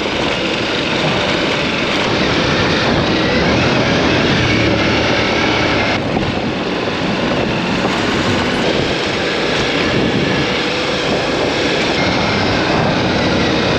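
Adventure motorcycle being ridden off-road: steady engine and riding noise, mixed with heavy wind on the camera's microphone.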